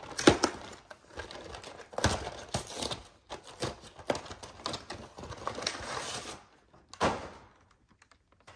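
Plastic packaging of a trading-card box crinkling and clicking as it is handled and the box's clear plastic tray is worked free, in a busy run of irregular crackles that dies away near the end.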